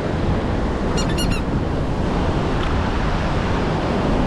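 Ocean surf washing on the beach with wind buffeting the microphone, a steady rushing noise. A faint, brief high-pitched call sounds about a second in.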